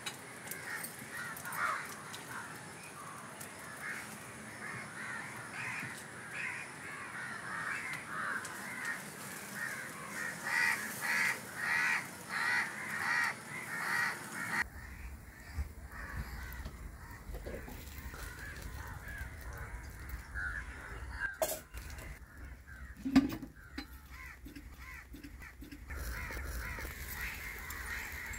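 Crows cawing over and over in a close run of calls. About halfway through the sound changes to a quieter background with a low hum and a few sharp knocks.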